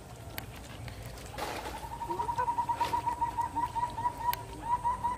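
A bird calling a rapid, even series of short notes, about six or seven a second. The notes start about a second and a half in and grow louder.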